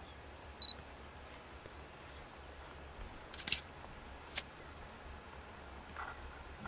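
A still camera's shutter clicking several times, with a short electronic beep about half a second in, over a faint low rumble.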